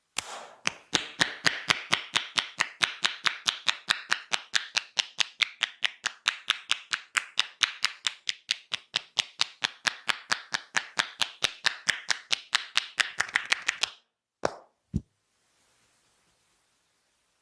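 Percussive hand massage: hands striking the body in a fast, even rhythm of about five claps a second, stopping abruptly about fourteen seconds in. Two short separate sounds follow.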